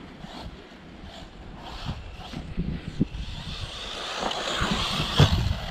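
Arrma Typhon 6S RC buggy's brushless motor and drivetrain whining as it drives across grass, growing louder near the end, with a thump about five seconds in.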